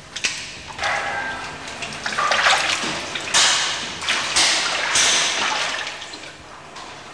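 Liquid splashing and running in several surges of about a second each, with a few knocks among them.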